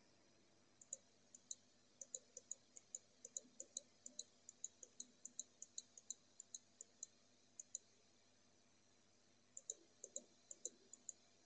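Faint computer mouse clicks, about two to three a second. Each click places a point of a curve being drawn. They pause for about two seconds past the middle, then a few more come near the end.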